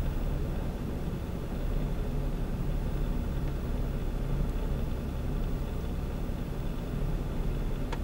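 Mazda MX-5 Miata running under throttle with its rear wheels spinning in deep snow, stuck on a drift: a steady low engine rumble.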